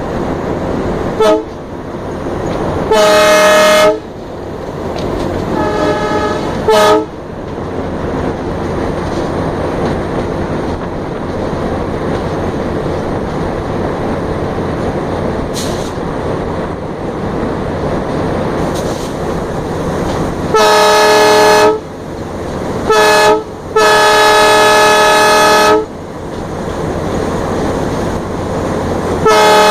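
Diesel locomotive's horn sounding in a series of blasts, some short and some a second or two long, over the steady running noise of the engine and wheels on the rails, heard from aboard the locomotive.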